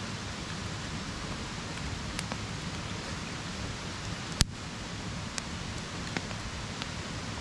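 Steady hiss of water, with a few sharp clicks scattered through it, one much louder than the rest about four and a half seconds in.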